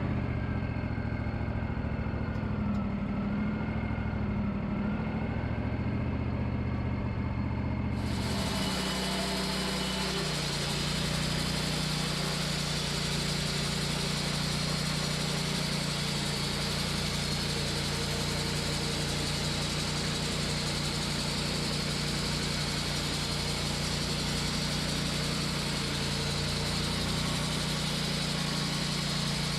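Wood-Mizer LT40 band sawmill's engine running steadily. About eight seconds in, a broad hiss joins the hum and the engine note drops slightly: the blade cutting into a golden birch log.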